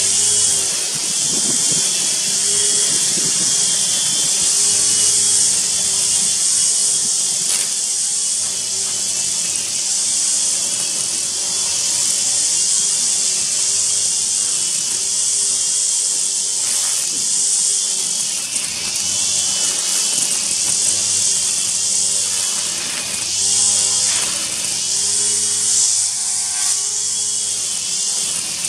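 String trimmer motor running steadily while its spinning line cuts long grass, with a whining tone whose pitch dips and recovers several times as the head meets the grass.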